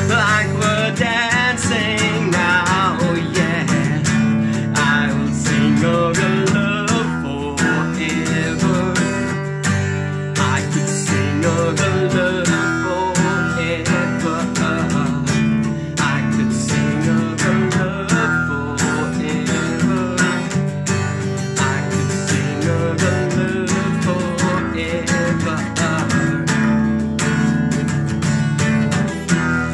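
Steel-string acoustic guitar strummed in a steady rhythm, a chorded instrumental passage. A man's singing voice carries over it for the first few seconds.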